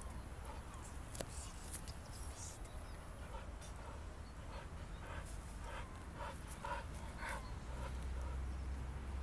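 A dog giving a string of short, soft whimpers, most of them in the second half, over a low rumble of wind on the microphone. There is a sharp click about a second in.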